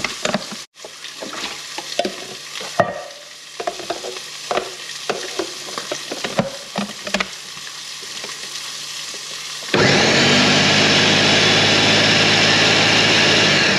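Clicks and knocks of handling over light sizzling of pork browning in a pan; about ten seconds in, a food processor motor starts and runs steadily, loudly blending onion, garlic and canned whole green chilies, then begins to wind down at the end.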